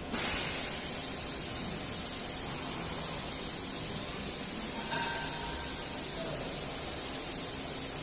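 Compressed air hissing at the CNC router's spindle as its automatic tool changer takes the first tool for tool-length measurement. The steady hiss starts suddenly and keeps going, with faint machine tones about halfway through.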